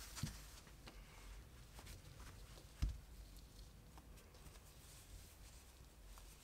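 Faint rustling and light ticks of a crochet hook working bulky yarn, with two soft thumps, the louder one just under three seconds in.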